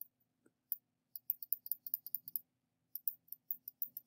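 Computer mouse clicking repeatedly while erasing in an image editor. There are a couple of single clicks at first, then quick runs of about five clicks a second. A faint low hum sits underneath.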